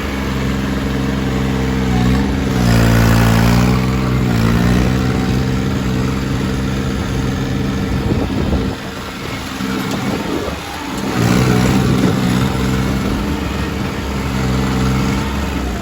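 The 655 Turbo's turbocharged engine running. Its pitch sags and recovers a couple of seconds in, dips away twice in the middle, then settles back to a steady run.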